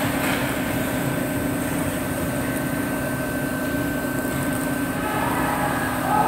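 Steady machine drone of an indoor ice arena: a low hum with a thin, high steady whine over it and an even noise underneath.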